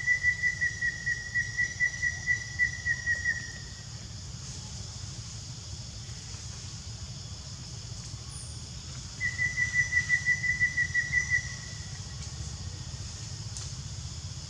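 A high, steady whistle-like trill, pulsing about four times a second, from a wild animal call. It runs for the first three or four seconds, then comes again for about two seconds around the nine-second mark.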